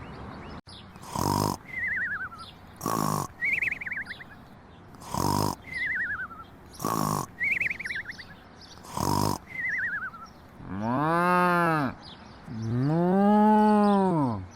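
A cow mooing twice near the end, two long calls that rise and then fall in pitch, the second longer and louder. They are preceded by a run of five short, sharp bursts, each followed by a quick falling chirp.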